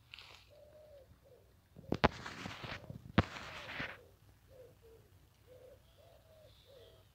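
A pigeon cooing: a run of short low coos repeated throughout. About two and three seconds in come two loud bursts of noise, each starting with a sharp click.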